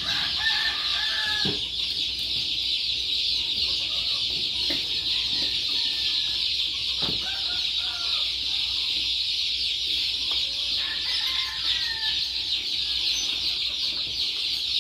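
A brooder full of chicks peeping without pause, many high chirps overlapping into one steady chorus. A few short knocks sound as the brooder is handled.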